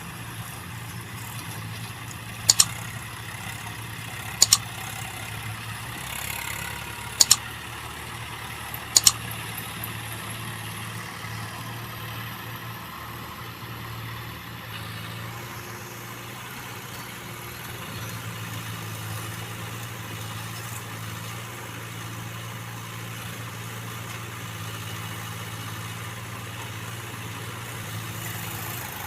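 Diesel engine of a Case 851 Ex backhoe loader running steadily at low speed. Four short, sharp knocks come in the first ten seconds, about two seconds apart.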